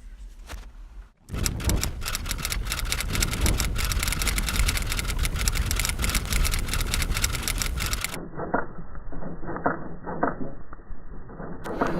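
Rapid typewriter typing: a dense run of key strikes starting a second or so in. From about eight seconds in the sound turns muffled and only a few separate clacks are heard.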